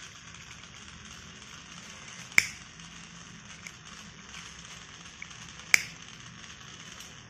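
Steady hiss and low hum of a small DC motor running in place of a bike engine, with two sharp clicks about three seconds apart.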